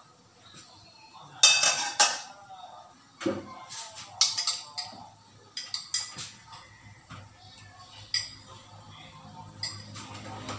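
A metal spoon clinking against dishes: about a dozen sharp, irregular clinks, the loudest pair about one and a half and two seconds in.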